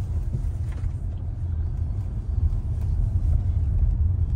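Steady low road rumble inside a moving car's cabin, the engine and tyre noise of driving.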